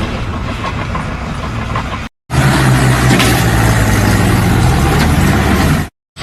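Loud machinery noise that cuts off about two seconds in, then a second stretch of steady engine hum with harsh noise over it that cuts off abruptly near the end.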